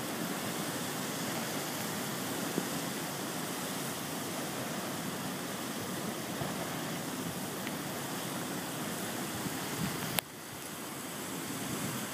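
Flash-flood water rushing down a channel across a dry lakebed, a steady, even rush. A sharp click about ten seconds in, after which the sound dips and slowly comes back up.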